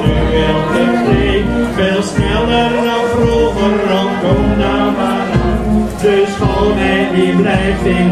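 Folk music with several voices singing together over a steady beat.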